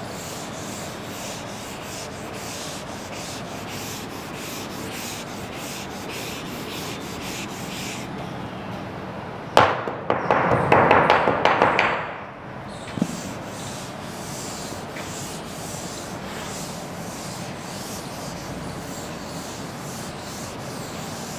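Chalkboard duster rubbing chalk off a blackboard in repeated wiping strokes. About ten seconds in, a louder, faster run of strokes lasts around three seconds, followed by a single knock.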